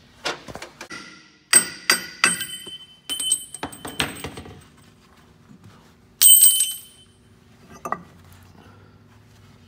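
Hammer blows and ringing metal clanks as the driveshaft yoke is knocked loose and worked off the power divider's input shaft: a quick series of sharp strikes in the first few seconds, a louder ringing clank about six seconds in, and a duller knock near the end.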